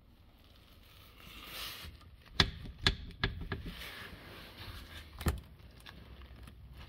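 A handful of sharp knocks and clicks, about five, the loudest about two and a half seconds in and another near five seconds in, over a faint rustling.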